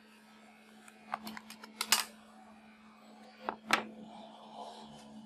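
Plastic back cover of a Samsung B310E feature phone being prised off by hand. A quick run of sharp plastic clicks and snaps about a second in, then two louder clicks a little later, over a steady low hum.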